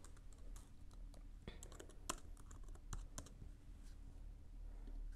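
Faint, irregular keystrokes on a computer keyboard, coming a few at a time as a short greeting is typed.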